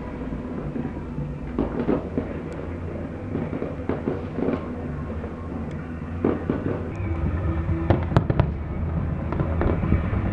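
Fireworks bursting overhead: a string of sharp bangs over a continuous low rumble, with a rapid cluster of loud cracks about eight seconds in.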